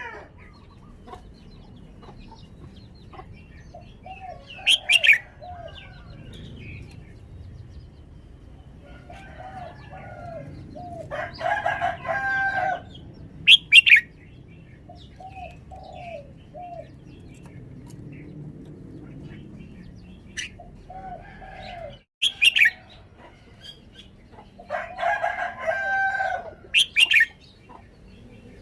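Red-whiskered bulbul singing short, sharp whistled phrases with pauses between them. Between its phrases a rooster crows twice, and chickens cluck in short runs of low notes.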